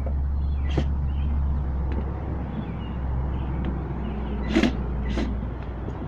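Cordless drill driving screws to mount the amplifier to the speaker box: a steady low motor rumble, with a sharp click about a second in and two more near the end.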